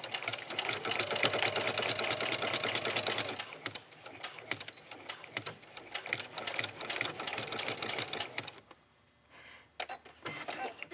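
Electric home sewing machine stitching a short seam through folded cotton fabric. It runs fast for about the first three and a half seconds, then more slowly until it stops about eight and a half seconds in. A few light clicks follow near the end.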